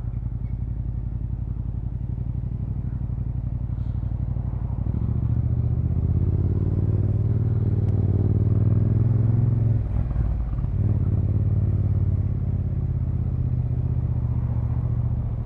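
Motorcycle engine running under way, with wind and road rumble on the onboard microphone; the revs climb from about five seconds in, drop briefly about ten seconds in, then pick up again.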